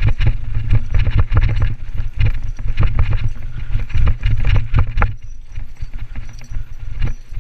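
Mountain bike rattling and clattering over a rough dirt singletrack, heard from a camera mounted on the bike, with wind rumbling on the microphone. The clatter is dense for about five seconds, then eases, with one more knock near the end.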